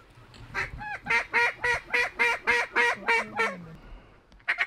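Mallard duck call blown in a run of about ten loud, evenly spaced quacks, about three a second, followed near the end by a short quick burst of notes.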